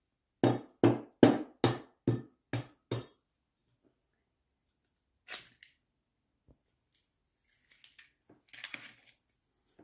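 An egg tapped seven times in quick succession against the rim of a glass measuring jug to crack it, a little over two taps a second, fading over the last few. A single click and some soft clicks and rustling follow as the shell is broken open.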